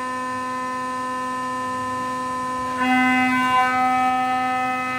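Brother Speedio CNC machining center milling with a 2-inch end mill, heard through the machine's closed doors: a steady humming tone with overtones. It gets louder and fuller about three seconds in.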